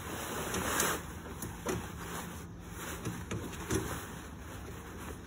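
Camouflage fabric boat-blind cover rustling and dragging as it is pulled and spread over the boat's frame, with a few light knocks.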